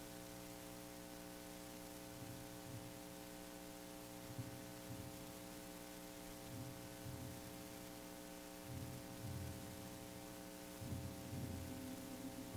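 Steady mains hum and hiss on a soundtrack with no music or dialogue, with faint low thuds now and then, more of them near the end.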